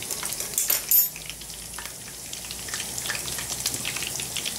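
Pot of dal bubbling as it comes up to the boil, a light crackle of small pops, busiest in the first second.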